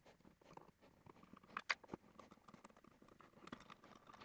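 Faint clicks and scrapes of a screwdriver turning out a screw from a room thermostat's wall mounting plate, with the plate handled as it comes loose; a few sharper clicks come about two seconds in and again near the end.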